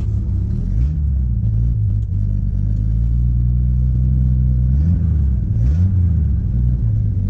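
1967 Ford F250's V8 engine running under load, heard from inside the cab, its pitch rising briefly about a second in and again around five and six seconds in as it is revved.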